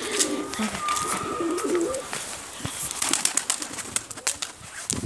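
Domestic pigeons cooing in low, wavering calls for the first two seconds, followed by a run of short, sharp clicks and scuffs.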